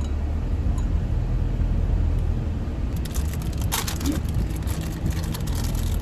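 Steady low rumble of a car heard from inside, with a flurry of crackling clicks about three seconds in that lasts a couple of seconds.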